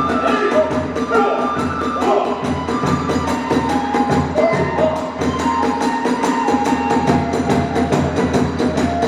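Hiroshima kagura accompaniment (hayashi): a fast, even beat of drum and hand-cymbal strokes, with a flute playing held, shifting notes over it.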